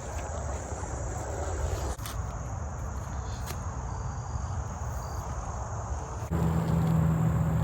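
Crickets chirring steadily, a thin high continuous trill, over a low rumble on the microphone. About six seconds in the sound changes abruptly to a steady low hum.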